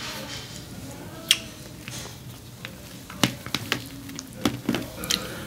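Mukbang eating sounds: chewing shrimp tacos with a scattering of sharp, wet mouth clicks and lip smacks, which come more often in the second half.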